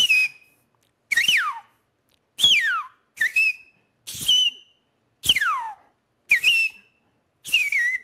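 A man whistling with his mouth in imitation of a red-crested cardinal's song: a series of clear notes about a second apart, short level chirps alternating with long whistles that slide steeply down in pitch.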